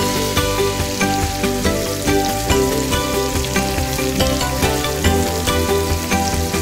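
Bacon, mushrooms, onion and tomato sizzling in an oiled frying pan as they are stirred, under background music with steady notes and a regular beat.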